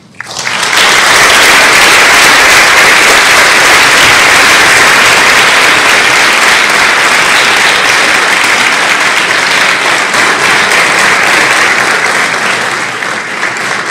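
Audience applauding, loud and steady, swelling up within the first second and easing off slightly near the end.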